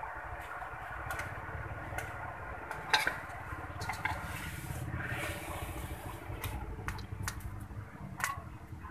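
Sauce simmering and bubbling in a metal wok over a charcoal fire, with scattered sharp clinks of a utensil or bowl against the wok, the loudest about three seconds in, over a steady low rumble. Near the end the sauce is poured from the wok into a ceramic bowl.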